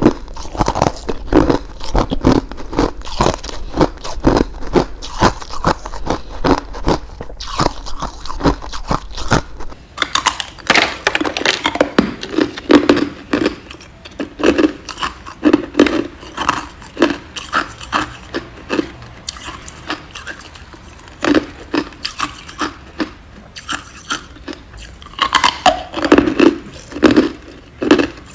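A person biting and chewing ice: a steady run of crunches and sharp cracks, several a second.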